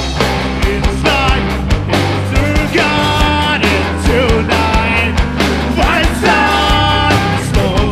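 Rock band playing a song with a steady drum beat under a sung vocal melody, the singer holding long notes about three seconds in and again near the end.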